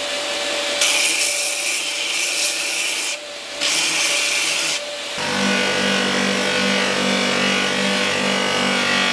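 Wooden strip ground on a running belt grinder, with two hissing sanding passes of one to two seconds each. About five seconds in, this gives way to the steady hum of a bench polishing machine's electric motor.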